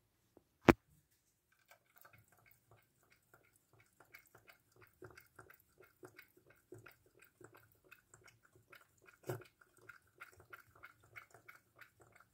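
Sphynx cat with its head in a metal saucepan, its mouth making quick small wet clicks, about four or five a second. A single sharp knock comes about a second in, and a smaller one later.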